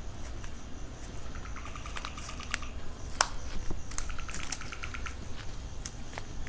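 Footsteps on dry leaves and twigs: scattered crunches and sharp snaps. Twice a short run of rapid, evenly spaced ticking pulses, with a thin steady high tone behind.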